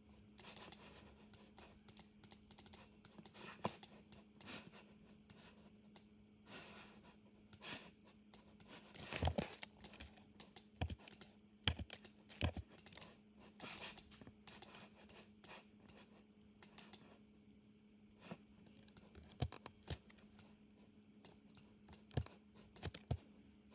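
Computer keyboard and mouse clicks, faint and irregular, with a busier run of keystrokes about nine to thirteen seconds in. A faint steady hum lies underneath.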